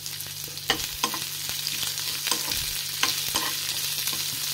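Sliced onions and green capsicum sizzling in hot oil in a nonstick kadai, with a steel spatula scraping and knocking against the pan a few times as they are stir-fried to brown.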